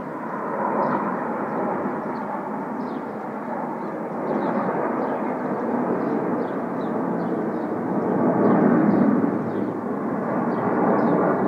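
Jet noise from a formation of Aermacchi MB-339 jet trainers flying aerobatics overhead: a steady, rushing engine noise that grows louder about eight seconds in.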